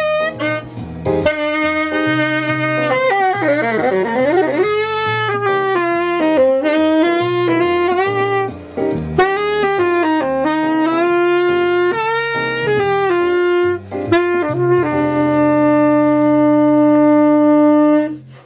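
Tenor saxophone playing a jazz tune: a run of melodic phrases with a quick swoop down and back up a few seconds in, ending on a long held note that stops just before the end.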